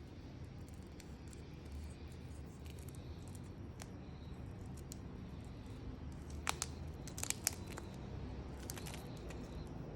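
Handling noises from a wristwatch unboxing: a few light clicks and rustles over a low steady hum, with sharp clicks about six and a half seconds in, a quick cluster a second later, and more near the end.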